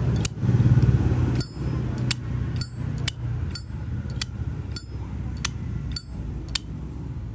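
Zippo lighter's metal lid flicked open and snapped shut over and over: about a dozen sharp clicks roughly half a second apart, some with a short high ring. The lid's sound is judged good, though the hinge is stiff.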